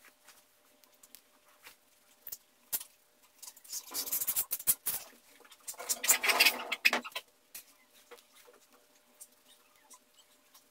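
Colouring pen rubbing on paper in quick scribbling strokes: two bursts of scratching about four and six seconds in, with faint ticks of the pen between them.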